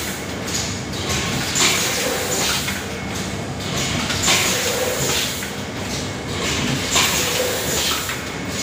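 Automatic rotary pre-made zipper-pouch packing machine running, a steady mechanical clatter with a short hiss repeating about every second and a third as it works through its cycle.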